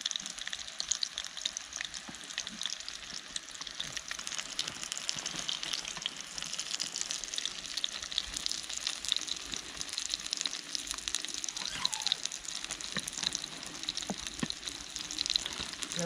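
Two burger patties frying in a Trangia 27 frying pan: a steady sizzle full of small crackling pops.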